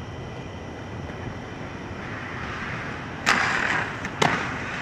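Aggressive inline skate wheels rolling on concrete, then a hard clack followed by a short scraping slide, and a second clack about a second later as the skates strike and land.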